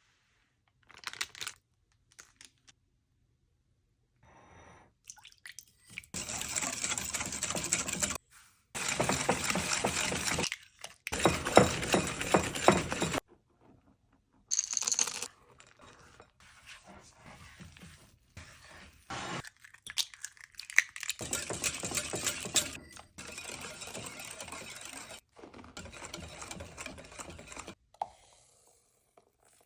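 Kitchen sounds of baking batter being prepared, in a series of short clips that cut off abruptly: passages of noisy scraping and stirring, with a few sharp clinks between them.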